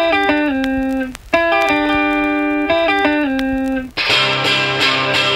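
Background music: a guitar phrase of notes stepping down in pitch, played twice. About four seconds in, a louder, fuller band section with a steady bass line comes in.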